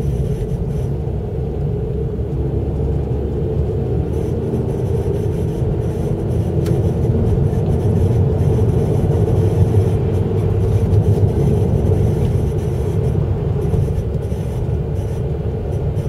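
Honda Civic FD2 running, heard as a steady low rumble that grows slightly louder midway; this is the noise the owner records as abnormal.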